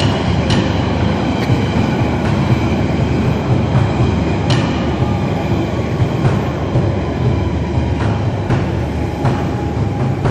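London Underground train running on the rails: a steady low rumble with irregular sharp clicks from the wheels passing over rail joints.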